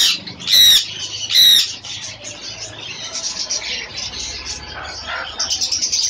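Caged conures give three loud, harsh squawks in the first second and a half, over the continuous chatter of many small caged birds, which grows busier near the end.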